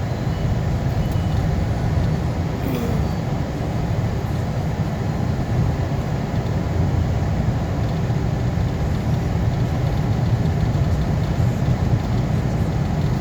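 Steady rumble of a vehicle driving along a road, heard from inside the cabin, mostly deep and unchanging.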